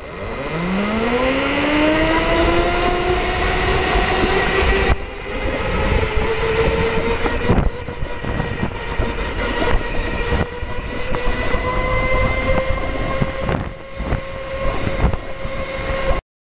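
Dual 48-volt, 1,000-watt electric hub motors of a go-kart whining as it pulls away from a stop under a draw of about 19 amps. The pitch rises quickly over the first couple of seconds, then holds nearly steady at speed over rushing road and wind noise, and cuts off suddenly near the end.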